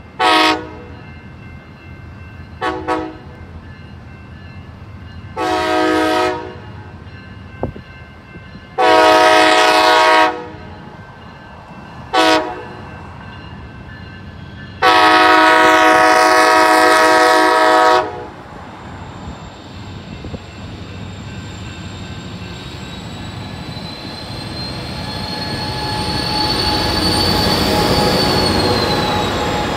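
Pacific Surfliner train led by a Siemens SC-44 Charger locomotive sounding its horn repeatedly on approach: a short blast, two quick ones, two longer blasts, another short one, then a long blast of about three seconds. The train's rumble then swells as it rolls past close by, with a thin high whine that rises and then falls in pitch as the locomotive goes by.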